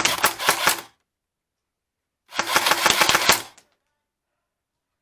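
Airsoft gun firing two rapid full-auto bursts, each about a second long, the second starting a little over two seconds in.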